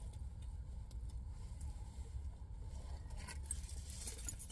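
Low steady rumble inside a car cabin, with faint scattered light taps.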